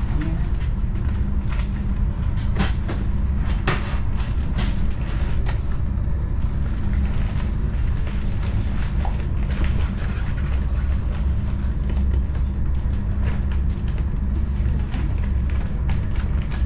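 Steady low rumble of a moving train heard from inside the carriage, with a few sharp clicks and knocks in the first five seconds.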